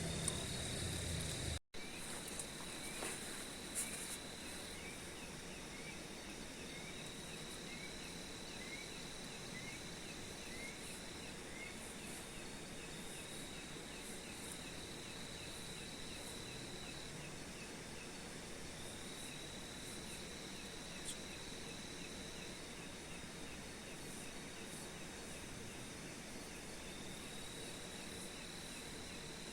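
Night insect chorus: a steady high-pitched trill, broken into long phrases every few seconds. Over the first ten seconds or so it comes with a run of short falling chirps, a little under one a second.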